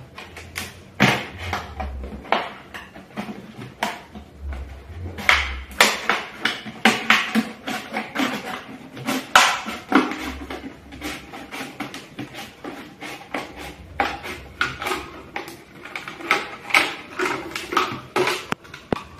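Scissors cutting around a thin clear plastic PET bottle: a long run of irregular snips, with the crinkle and crackle of the plastic being handled.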